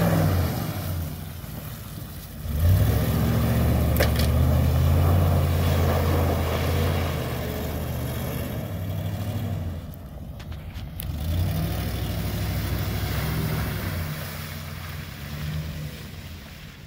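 Ford F-150 pickup's engine revving hard as the truck spins its tyres in mud. It surges about two and a half seconds in, eases off, surges again partway through, then fades as the truck pulls away.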